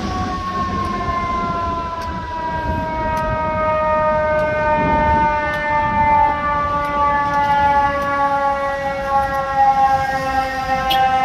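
Emergency vehicle siren sounding one long wail that falls slowly and steadily in pitch, growing a little louder toward the end.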